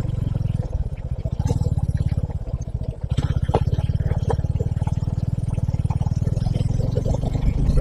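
Suzuki V-Strom SX 250's single-cylinder engine running steadily as the motorcycle is ridden, with a fast even beat of exhaust pulses and a few light clicks and rattles.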